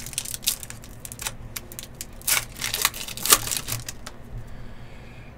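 Foil wrapper of an Upper Deck Artifacts golf hobby pack being torn open and the cards slid out, making a run of sharp, irregular crinkles and rips. The loudest crackle comes a little past three seconds, and it goes quieter near the end.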